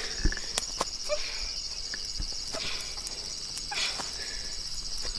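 Crickets chirping in a steady, continuous high trill, with scattered short clicks and rustles of movement through undergrowth.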